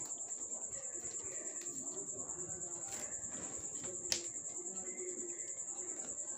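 A steady, high-pitched pulsing trill at about six pulses a second, with plastic craft wire strands clicking softly as they are knotted by hand and one sharp click about four seconds in.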